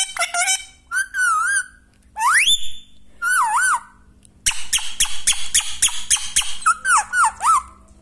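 Indian ringneck parrot whistling a run of varied notes: wavering whistles, a rising glide about two seconds in, and a quick series of short sharp notes near the middle.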